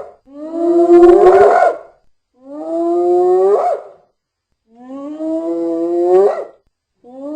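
Hyena whoops, given as the call of the extinct cave hyena: a series of long calls, each rising slowly in pitch and then sweeping up sharply at its end. Three whole calls come about two seconds apart, the first the loudest, and a fourth begins near the end.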